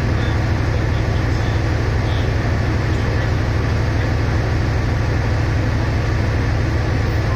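Diesel engine of a stationary passenger train running at idle, a steady low throb.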